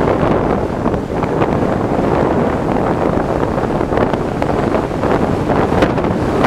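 Wind buffeting the microphone of a camera on a moving electric scooter: a steady rushing noise with no engine note.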